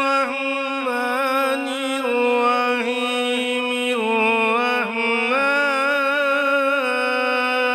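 A man's voice reciting the Quran in the melodic tajweed style, drawing out long held notes with ornamented turns of pitch.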